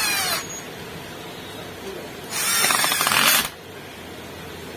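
Cordless drill/driver running in short bursts as it drives the gear-housing screws into an angle grinder. One run cuts off just after the start. Another, with a rapid clicking in it, lasts about a second from a little past two seconds in.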